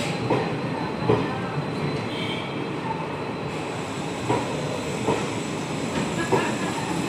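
Passenger train running on the track: a steady rumble with short sharp knocks every second or so, typical of wheels passing over rail joints.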